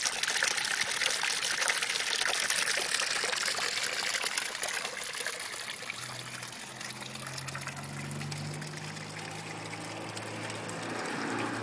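Small garden-pond fountain: a jet of water splashing and trickling back into the pond. A low steady hum joins about halfway through.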